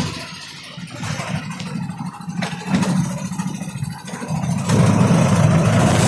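Auto-rickshaw running down the road, heard from inside the cab: a steady low motor hum with road noise, quieter at first and growing louder about three-quarters of the way through.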